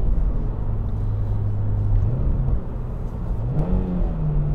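Toyota GR86's 2.4-litre flat-four, through an aftermarket Cobra exhaust, running steadily on the road. About two seconds in the revs rise briefly and drop back, and near the end they rise again and settle higher: a rev-matched downshift.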